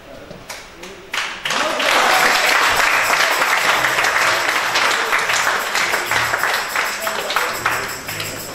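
Congregation applauding, a dense spread of hand claps that starts about a second in and keeps going steadily.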